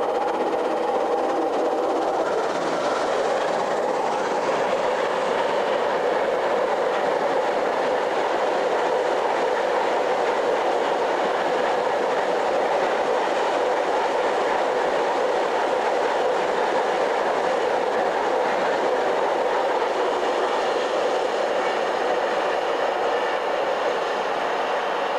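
Freight train wagons rolling past on the main line: a steady, even noise of wheels running on the rails.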